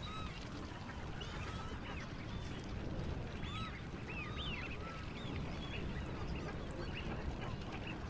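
A group of birds calling, many short rising-and-falling calls overlapping, over a steady low rumble.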